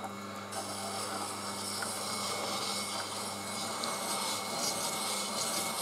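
Tormek T7 wet sharpener running with a steady low hum while a chisel in the square-edge jig is held against the turning grindstone for a final hone. The steady hiss of steel on the wet stone strengthens about half a second in.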